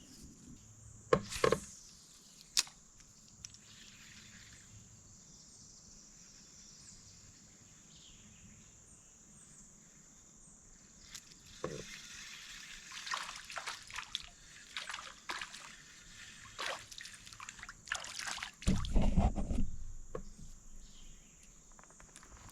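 Water splashing and trickling at a small fishing boat, with a few sharp knocks in the first three seconds and the loudest splash about nineteen seconds in, over a steady high-pitched hum.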